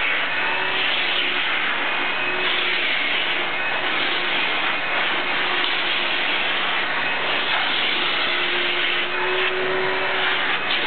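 Riccar 8928 vacuum cleaner running steadily, its hose nozzle held against a dog's coat to pull out shed undercoat. A faint hum comes and goes over the even rush of suction.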